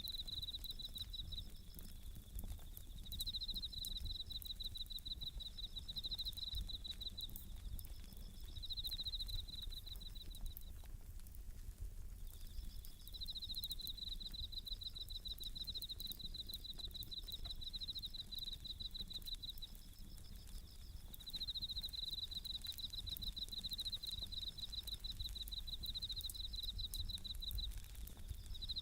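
Japanese bell crickets (suzumushi) chirping in rapid pulsed trills, phrase after phrase, with a short pause about eleven seconds in. Under them a wood campfire crackles with scattered small pops.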